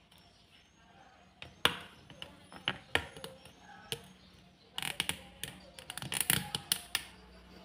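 Handling noise of a PVC pipe and a small metal cylinder: scattered sharp plastic clicks and taps, coming thicker in a cluster past the middle, over a faint steady hum.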